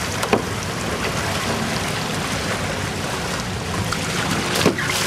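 Shallow water splashing and small waves lapping around people wading to push a plastic sit-on-top kayak off the shore, with steady wind on the microphone. A short knock comes about a third of a second in and another near the end.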